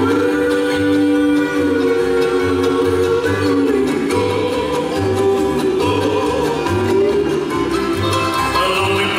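Bluegrass band playing live: upright bass keeping a steady beat under long held string or vocal lines.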